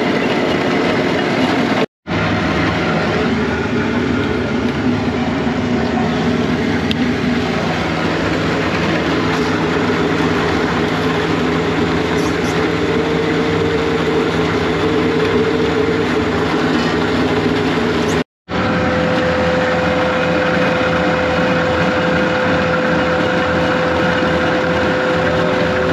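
Skid steer loader's diesel engine running steadily, heard from inside the operator's cab, with a steady whine joining in about two-thirds of the way through. The sound cuts out briefly twice.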